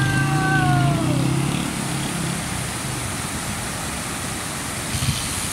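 Motor vehicle engine running steadily with road noise on a rough track. In the first second a pitched tone slides downward and fades.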